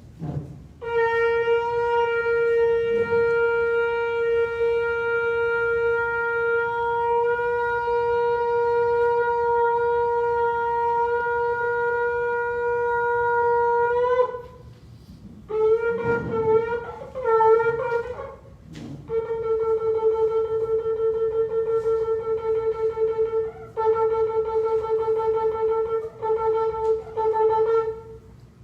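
A shofar (ram's-horn trumpet) being blown. It opens with one long steady blast of about thirteen seconds, then gives a few short wavering notes, then another long run of blasts broken by brief gaps.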